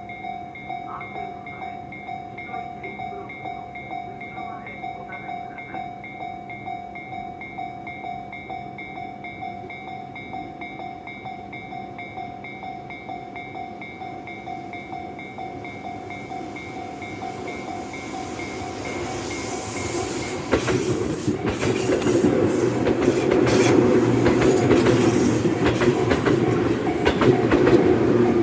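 Japanese level-crossing alarm ringing its steady, rapidly repeating electronic clang. About two-thirds of the way in, an electric commuter train comes up and runs through the crossing, growing loud, with its wheels clacking over the rail joints.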